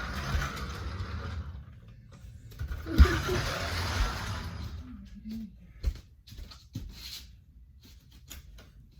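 LEGO bricks being handled: two bouts of rustling in the first half, with a sharp click about three seconds in, then scattered small clicks and knocks.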